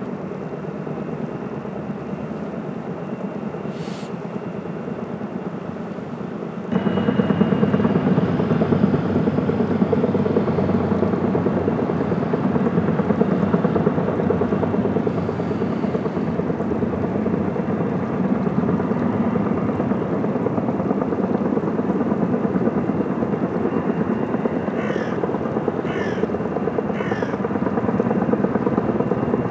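Kaman K-MAX K-1200 helicopter's intermeshing rotors and turbine engine running in flight with a log load slung beneath on a long line, a steady dense rotor and engine noise that gets suddenly louder about a quarter of the way in. Near the end, three short high chirps come about a second apart over the noise.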